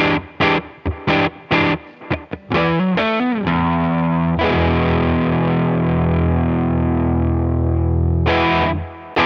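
SQOE SETL980 Telecaster-style electric guitar with an Alnico humbucker/single-coil pickup set, played through distortion. It plays short choppy chord stabs, then a quick run of notes into a chord that rings for about four seconds, then one more stab and a short break before the playing starts again.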